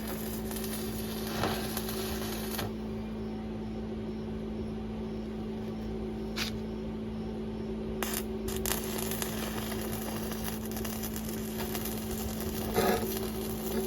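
Steady machine hum with a few sharp metallic clicks and clinks scattered through it.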